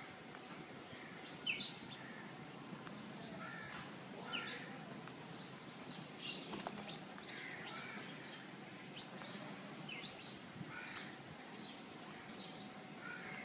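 Faint bird calls, short chirps coming every second or so over a quiet outdoor hiss.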